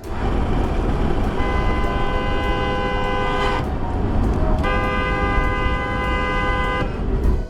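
Car horn sounding in two long blasts, each a little over two seconds, over a steady low road rumble.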